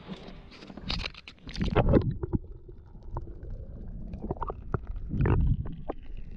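Water splashing as a redfish is lowered over the side of a boat for release. After about two seconds the sound turns muffled and gurgling as the microphone goes under water, with a low rumble about five seconds in.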